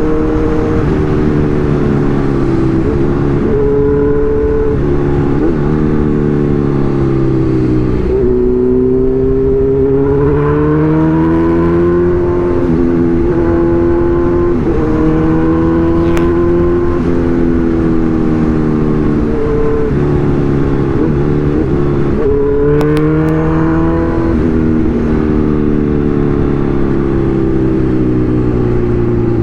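Kawasaki Z1000's inline-four engine while riding, its revs climbing and falling again and again as it accelerates and shifts through the gears.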